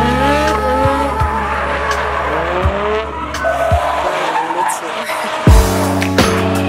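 Drift car engine revving in repeated rising sweeps with tyres squealing as the car slides, over music with a heavy bass beat that hits hard near the end.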